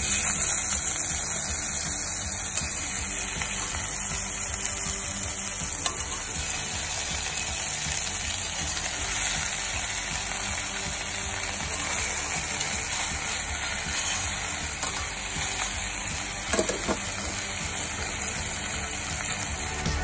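Chicken pieces frying in hot oil in a stainless steel pot, a steady sizzle, with a couple of brief knocks about six seconds in and again near the end.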